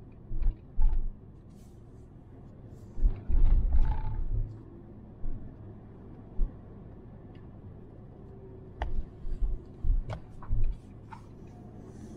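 Cabin sound of a Suzuki Jimny JB64 driving a rough mountain road: a steady low drone of the car in motion, broken by irregular heavy low thumps and rumbles and a few sharp clicks. The longest stretch of rumbling comes about three to four and a half seconds in, and a cluster of thumps comes near the end.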